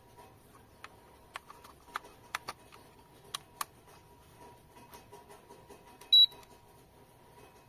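Several sharp plastic clicks from the buttons of an L900 Pro SE MAX drone's remote controller being pressed, then one short high-pitched beep from the controller a little after six seconds in.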